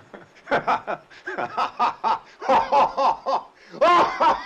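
A man laughing hysterically in a run of repeated bursts.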